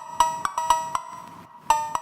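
Background music: a quick melody of short, bright struck notes, like a wood block or mallet instrument, stepping between a few pitches, with a brief pause before the notes resume near the end.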